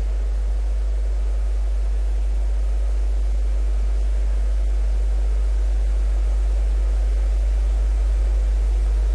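Steady low hum with a faint even hiss over it, from an open microphone and sound system, with no other event standing out.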